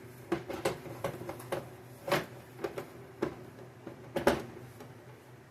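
Scattered light clicks and knocks of things being handled, the loudest about two, three and four seconds in, over a faint steady low hum.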